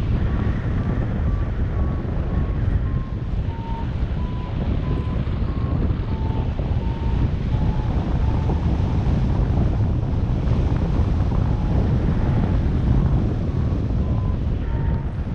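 Wind rushing over the microphone in flight, with a flight variometer beeping short tones about twice a second; the beep pitch sinks slowly through the middle and rises again near the end, the signal of climbing in a thermal with the climb weakening and then picking up.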